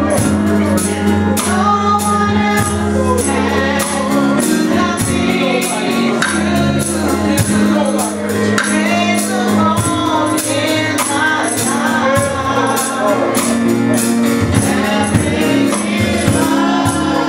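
Live gospel music: voices singing over sustained low instrument notes and a steady percussion beat of about three strikes a second.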